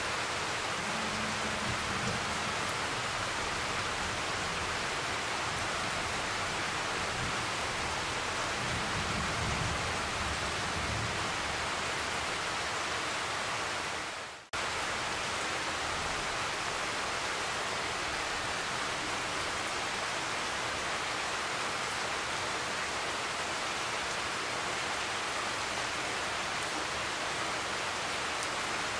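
Steady, heavy rain hissing down in a thunderstorm, with low rumbles of thunder twice in the first ten seconds or so. The sound dips out for a moment about halfway through.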